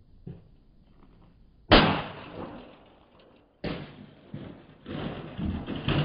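A small portable boombox dropped from a roof crashing onto a concrete driveway: two sharp crashes about two seconds apart, then clattering as it bounces and its batteries spill out.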